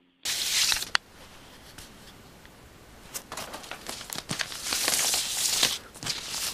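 Paper mail (envelopes, letters and brochures) being handled and shuffled, rustling and crinkling. A loud rustle starts just after the beginning, with a sharp click about a second in, then it goes quieter until more shuffling with many small clicks picks up from about three seconds on.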